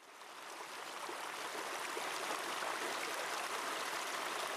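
Flowing water, a steady rushing sound that fades in over about the first second.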